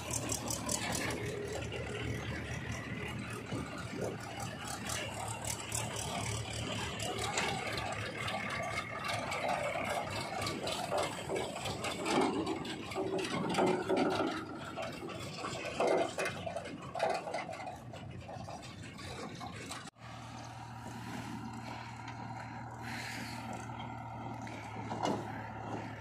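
Diesel engines of farm tractors and a JCB 3DX backhoe loader running, with metal rattling and scraping. After a cut about 20 seconds in, a steadier engine hum.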